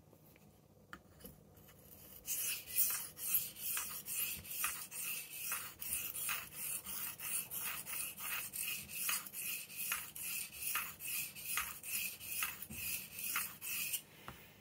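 Soft-steel Victorinox blade stroked quickly back and forth on a 600-grit Atoma diamond plate to deburr the edge, a scratchy rasp about three strokes a second. It starts about two seconds in, after a few light clicks, and stops suddenly near the end.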